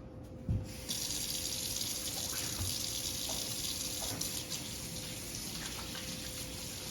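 A short low thump, then a kitchen sink tap is turned on about a second in and runs steadily as hands are washed under it.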